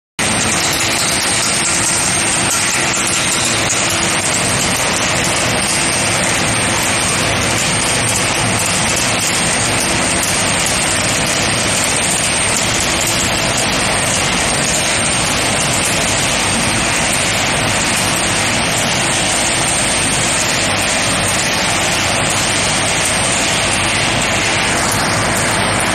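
Steady, loud machinery noise from an induction forging line running: the induction heater, the electric drive motor and the forging rolls together. A faint high-pitched whine cuts in and out on top.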